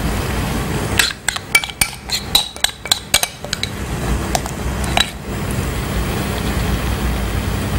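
A metal spoon clinking against the rim of a granite-coated karahi as lentil batter is scraped off into hot oil: a quick run of clinks from about one second in, then a single clink near five seconds. A steady hiss of oil frying lies beneath.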